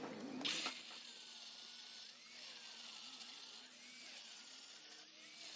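Handheld power tool cleaning slag off a flux core weld bead. It runs with a high hiss in stretches of a second or so, with short pauses between.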